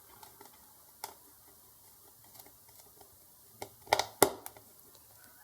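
Sharp clicks and knocks of electrical leads being handled and connected to a circuit board on the workbench: a single click about a second in, then a quick cluster of louder clicks around four seconds in.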